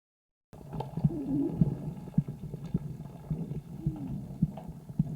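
Calf's chest sounds picked up through a homemade stethoscope microphone pressed to the body, recorded on the sixth day of a lung illness: a low, muffled rumble with scattered short clicks and two brief gliding tones, starting about half a second in.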